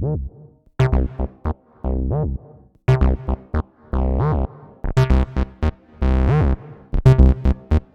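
Behringer TD-3-MO monophonic analog bass synthesizer playing a sequenced acid bassline: mostly short staccato notes with a few longer held ones, the resonant filter sweeping through each note for a squelchy tone.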